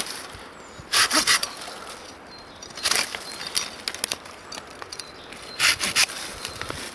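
Silky Pocketboy 130 folding saw cutting through a pine branch: short bunches of quick, rasping strokes about a second in, around three seconds, and again near six seconds.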